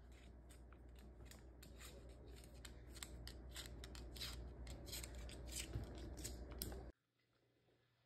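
White cockatoo's claws clicking on a hardwood floor as it walks, a faint, quick, irregular run of sharp ticks that cuts off suddenly near the end.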